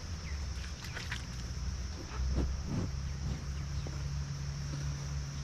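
A steady, high-pitched chorus of insects such as crickets, over a low rumble with a few faint knocks.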